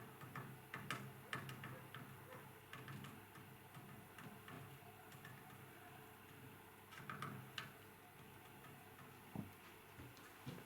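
Woodpecker tapping on a tree trunk: faint, irregular single knocks, several in the first few seconds, another short cluster about seven seconds in and one more near the end.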